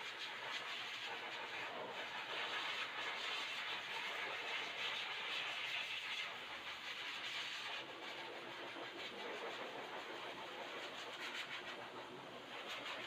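A small electric pet-grooming tool running steadily, with a hissing, whirring noise that swells and eases every second or so.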